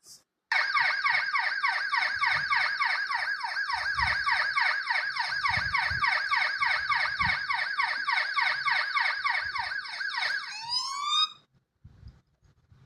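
Ambulance siren in a rapid repeating yelp, starting abruptly and cutting off suddenly about eleven seconds in, just after a brief change in its sweep.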